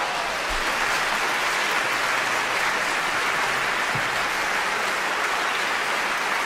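Audience applauding after the aria ends: dense, steady clapping.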